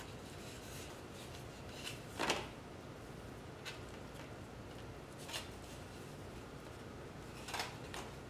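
A handful of short scrapes and taps as a plastic fork works the skin off a soft, microwaved sweet potato on a disposable plate. The loudest comes about two seconds in, with others spaced through the rest.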